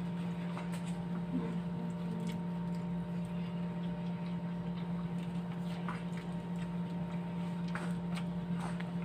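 A steady low hum, with a few soft, scattered clicks and smacks of shrimp being eaten by hand.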